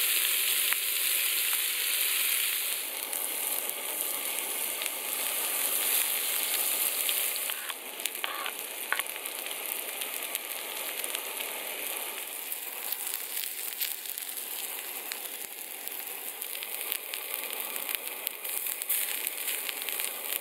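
Food frying in a cast-iron skillet on a camp stove: bacon sizzling loudly at first, then, after a drop about seven seconds in, a quieter sizzle with many small pops and spits as mushrooms and then shredded potato fry.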